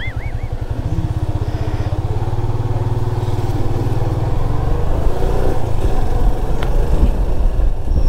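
Motorcycle engine running with road and wind noise as the bike pulls away, the engine note climbing over the first few seconds.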